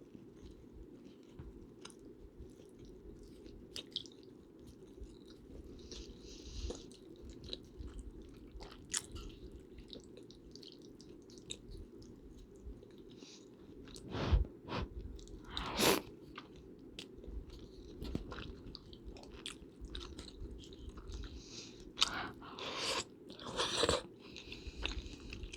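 Close-miked eating: chewing and biting with small wet clicks, over a steady low background noise. A couple of louder knocks come a little past halfway and a few more near the end.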